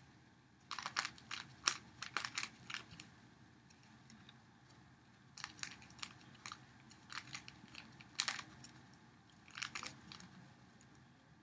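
Plastic clicking of a 3x3 Rubik's Cube's layers being turned by hand, in quick bursts of several turns with short pauses between.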